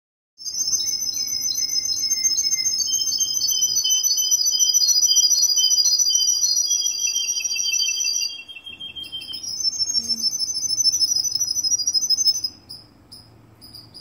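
Russian canary singing long, rapid rolling trills. The first trill runs about eight seconds. After a short break a second trill follows for about three seconds, and the song ends in a few short separate chirps.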